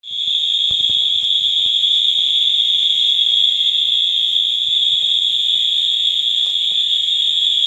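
Wheelock fire alarm horns (AS and MT models) sounding a continuous, unsynchronised steady tone on an annual alarm test. The high-pitched tone switches on abruptly at the very start and holds without a break.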